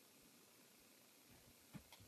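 Near silence: faint room hiss, with one soft tap near the end as the 3D-printed plastic crossbow is handled.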